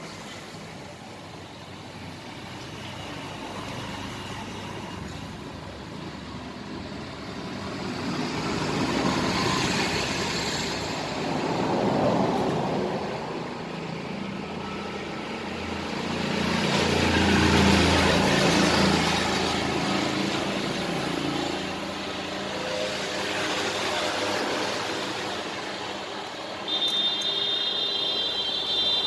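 Passing road traffic: vehicles swell and fade one after another, the loudest near the middle. A high-pitched steady tone starts near the end.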